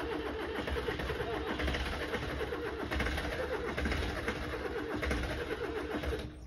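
Tata Sumo's diesel engine running unevenly with a low throb just after a cold start in snow, its exhaust pouring out thick white smoke. The sound stops abruptly at the end.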